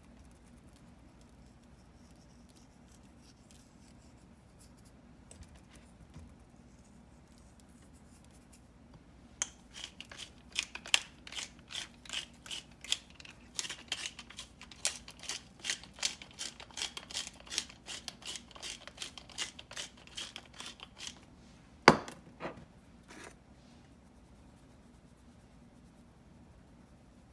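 Pepper mill being twisted to grind black pepper: a dense run of rapid, gritty clicks lasting about ten seconds, starting about a third of the way in. Shortly after the grinding stops comes a single sharp knock, the loudest sound, followed by two lighter taps.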